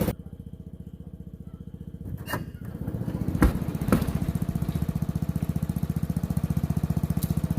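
A Briggs & Stratton 5 hp single-cylinder engine on a garden tiller runs with a steady, even firing beat. It is quieter for the first few seconds, then there are two sharp knocks around three and a half and four seconds in, and after that it runs louder.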